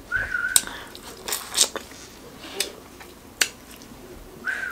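Close-up eating of corn on the cob: crisp bites tearing kernels off the cob and wet chewing, with about six sharp crunches spread through. A short high whistle sounds near the start and again near the end.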